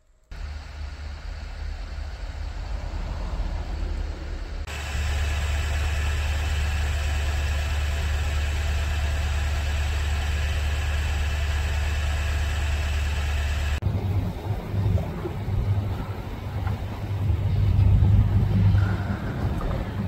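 Wind buffeting the microphone in a blizzard: a steady low rumble that changes abruptly twice, and grows gusty and uneven in the last few seconds.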